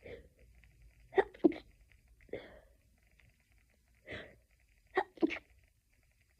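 A person having a fit of stifled sneezes: two sharp, held-in sneezes in quick succession about a second in, and another pair near the end, with short breathy build-ups between them.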